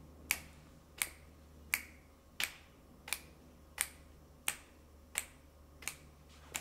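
Finger snaps keeping a steady beat, about ten evenly spaced snaps, a little under one a second, as a pulse for reading a rhythm aloud.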